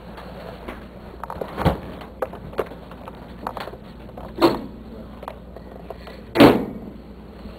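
Household doors, including a refrigerator door, knocking and thumping as they are opened and handled: a run of light knocks, then a louder thump about four and a half seconds in and the loudest one about six and a half seconds in.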